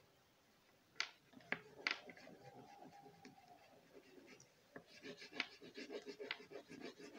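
Oil pastel scratching over card paper in quick, short back-and-forth strokes, growing busier from about five seconds in; a few sharp taps a second or two in.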